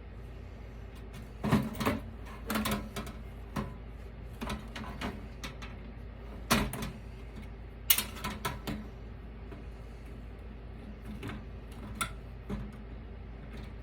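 Hand cutters snipping and clicking as a piece of copper is nipped off a computer motherboard: a string of irregular sharp clicks and small clatters, the loudest about one and a half, six and a half and eight seconds in.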